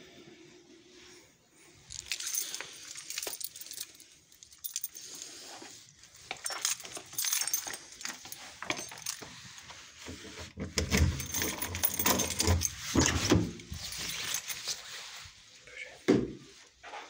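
Close clinking and rustling handling sounds, like keys jingling and clothing or the phone being handled, with heavier low thuds in the middle and a short falling squeak near the end.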